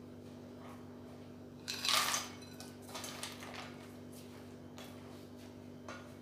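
Cooked chickpeas tipped from a plate into a pot of chicken in sauce, landing with a short burst of noise about two seconds in. A silicone spatula then stirs the pot with a few soft knocks, over a steady low hum.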